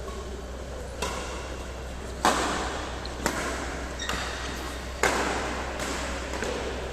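Badminton rackets hitting a shuttlecock in a rally: sharp smacks about once a second, each with a short echo. The loudest hit comes a little over two seconds in, over a steady low hum.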